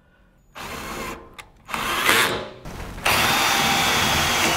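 Cordless drill driving self-tapping screws through aluminum L brackets into an aluminum column. It runs in two short bursts, then runs loud and steady for the last second and a half.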